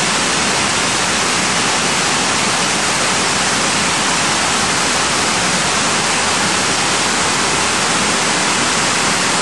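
Crystal Cascade, a tall mountain waterfall, rushing with a loud, steady, unbroken sound of falling water.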